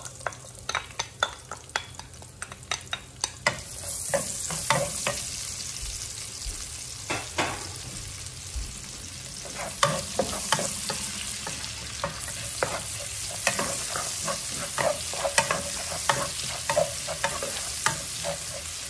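Chopped red onion frying in hot bacon grease in a wok, the sizzle getting louder about four seconds in, while a wooden spatula stirs it with many short knocks and scrapes against the pan.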